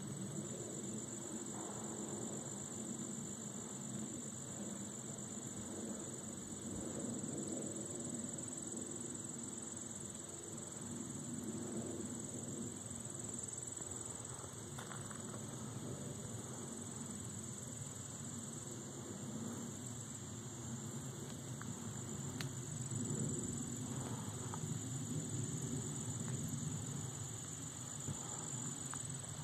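A yellow jacket's wings buzzing on and off as it struggles trapped in a web, over a steady high-pitched insect chorus.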